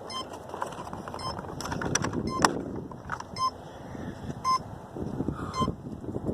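Short electronic beeps repeating about once a second over rough outdoor noise, with a sharp knock about two and a half seconds in.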